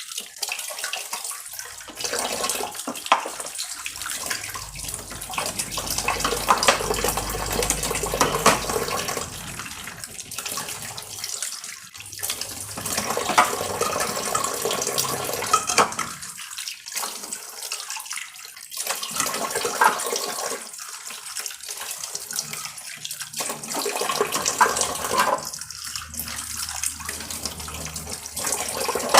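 Tap water running into a sink, splashing unevenly as things are rinsed under the stream, with a few short breaks in the flow.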